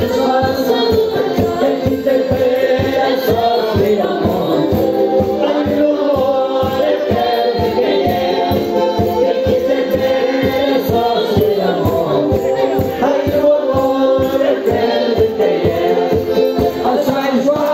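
Madeiran folk music: a group singing over a quick, steady beat.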